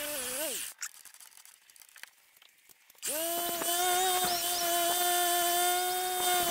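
Handheld angle grinder with a sanding disc, whining at a steady high pitch as it sands wood spinning on a lathe. A first run cuts off about half a second in. After a quieter gap with faint ticks, the grinder spins up again about three seconds in and runs steadily.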